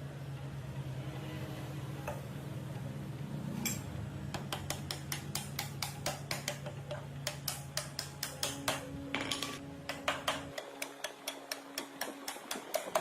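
A steady low motor hum that cuts off suddenly about ten seconds in, with repeated light metallic taps and clinks, two or three a second, from about four seconds on.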